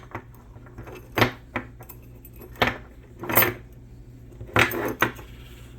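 Small metal parts of a Nissan D21 manual locking hub clinking against each other as the spring and its retaining pieces are handled and fitted back into the hub: about half a dozen separate sharp clinks, some with a brief ring.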